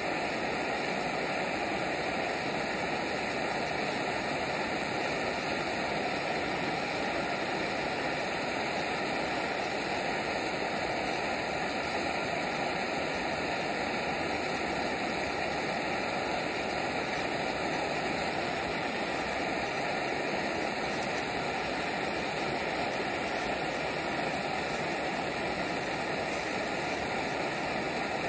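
Propane torch flame burning with a steady hiss, heating the cap of a homemade oxalic acid vaporizer to drive off the acid as vapor.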